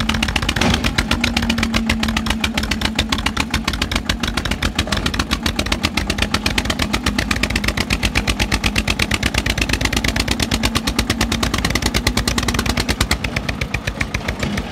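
Eicher 241 tractor's single-cylinder diesel engine labouring under full load as it pulls a loaded sand trolley, with a fast, even beat of exhaust pulses. It eases off slightly near the end.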